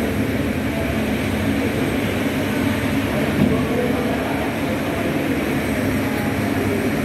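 Four turboprop engines of a C-130 Hercules running on the ground, a steady, loud, deep drone.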